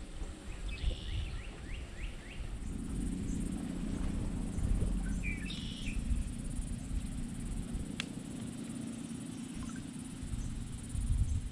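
Outdoor lakeside ambience: wind rumbling on the microphone, a short rapid chirping call about a second in and again around five seconds in, and a steady low hum that comes in a few seconds in. A single sharp click near the end.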